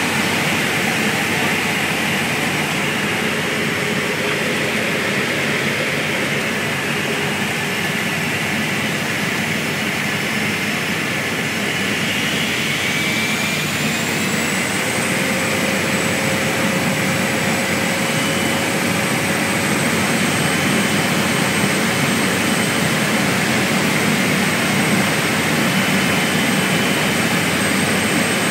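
Single-engine floatplane's piston engine and propeller running steadily, heard from inside the cabin. The engine note rises between about twelve and fifteen seconds in, then holds steady.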